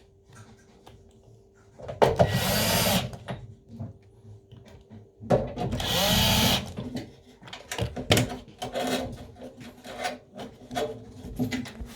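A power drill or screwdriver runs in two bursts of about a second each, then come a series of clicks and knocks from parts being handled.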